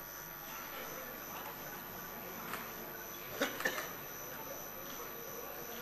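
Quiet room tone of a large legislative chamber, with faint indistinct background sounds and a brief cluster of short knock-like noises about three and a half seconds in.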